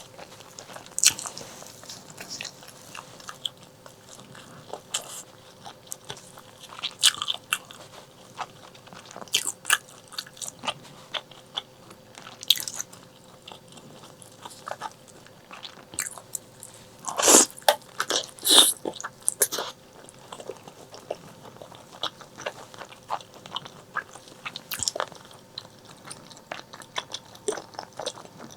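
Close-miked eating of braised pork leg: irregular wet bites, chewing and crunchy clicks, with a louder cluster of bites about two-thirds of the way through.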